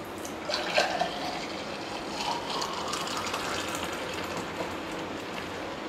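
Blended cold coffee poured in a steady stream from a stainless-steel mixer-grinder jar into a tall glass, filling it. The pour is a little louder about half a second in, then runs evenly.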